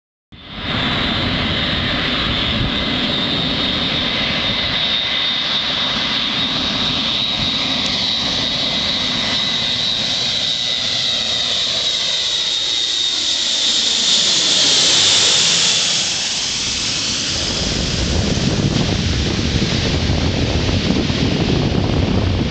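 Airbus A400M's four turboprop engines on landing approach, a steady high whine with a propeller drone that grows as the aircraft nears and is loudest about fifteen seconds in as it passes overhead. After the pass the sound turns to a low, rumbling noise as it moves away.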